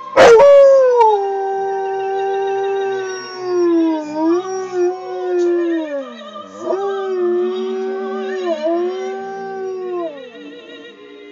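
Alaskan malamute howling along with opera singing: one long howl that begins abruptly and loudly, holds a steady pitch, dips twice around the middle and slides down to an end about ten seconds in. Faint operatic singing with vibrato runs underneath.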